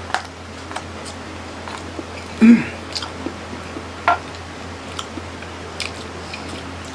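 Close-up chewing of baked sushi wrapped in roasted seaweed, with small wet smacks and clicks of the mouth. A short hummed sound, the loudest thing, comes about two and a half seconds in.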